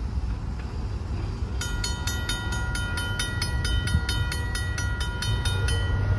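Railroad crossing bell starting about a second and a half in and ringing steadily at about four strokes a second while the crossing gates lift after the train has passed. A steady low rumble runs underneath.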